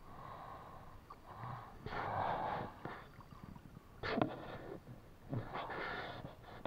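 Stream water splashing and sloshing as a mesh fish trap net is pulled and shaken through it, in several uneven spells.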